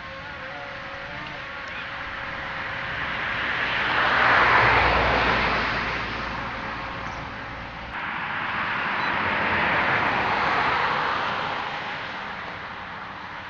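Two cars passing by one after the other, each a rush of tyre and engine noise that swells and fades. The first is the louder, peaking about four and a half seconds in with a low rumble under it; the second peaks around ten seconds.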